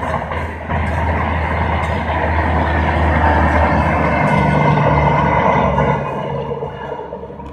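AC double-decker express train hauled by a WAP-5 electric locomotive running past, a steady low rumble of the coaches on the track. A low hum joins about halfway through, and the sound fades toward the end as the train moves off.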